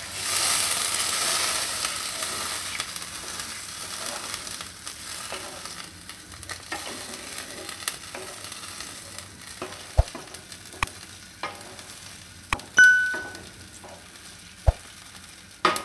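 A spatula stirring fenugreek leaves through water and oil in a hot nonstick pan, the liquid sizzling, strongest over the first few seconds and then fading. Later come scattered sharp knocks of the spatula against the pan, one about 13 seconds in ringing briefly.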